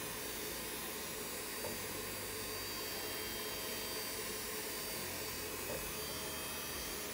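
Small bench polishing motor running with a steady hum while a watch part is finished on its wheel.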